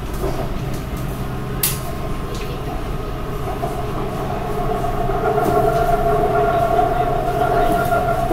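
Running noise heard from inside a BTS Skytrain carriage on the move: a steady rumble and hum, with a whine that comes in and grows louder about halfway through. A single short click about one and a half seconds in.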